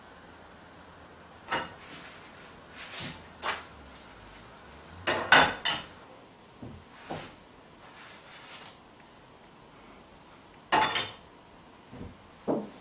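A utensil knocking and scraping against a frying pan as pancakes cook: a string of separate clatters, the loudest about five seconds in and again near eleven seconds.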